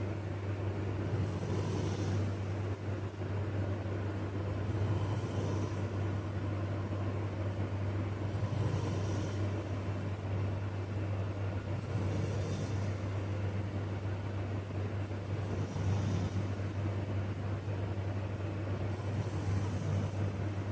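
A man snoring in his sleep, a breath about every three and a half seconds, over a steady low hum.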